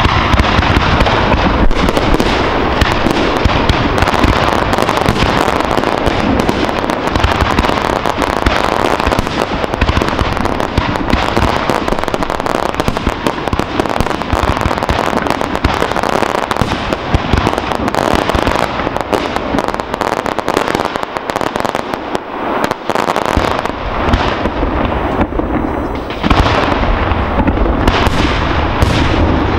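Aerial firework shells launching and bursting in rapid succession, their bangs overlapping into an almost continuous barrage. It eases briefly a little over 20 seconds in, then comes back louder near the end.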